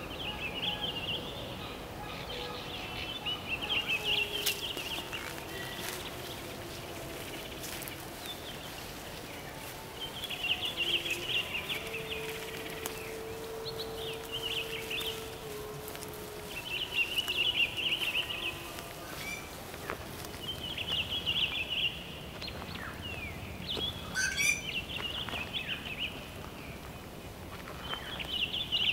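Wild birds calling: a chattering call repeated in bursts of a second or two every few seconds, with scattered chirps between. A low steady drone runs for about four seconds near the middle.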